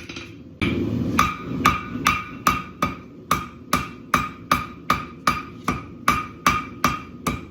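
Blacksmith's hammer striking steel on an anvil in a steady rhythm, about two and a half blows a second, each with a short ringing tone. The blows resume after a brief pause, with a steady low rushing noise underneath from about half a second in.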